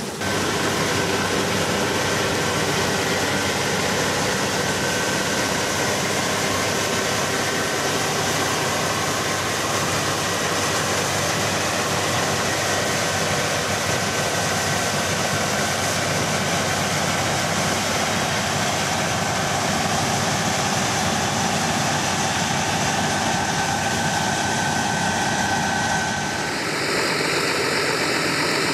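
Claas Lexion 760 TerraTrac combine harvester running under load while harvesting protein peas: a steady mix of engine and threshing machinery noise with a faint high whine. Near the end it gives way to the steady hiss of harvested peas pouring from a trailer onto a heap.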